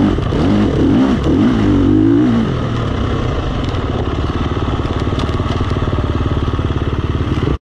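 KTM 350 XC-F dirt bike's single-cylinder four-stroke engine heard close from the handlebars, its pitch rising and falling with the throttle for the first couple of seconds, then settling into a steady, lower running. The sound cuts off suddenly near the end.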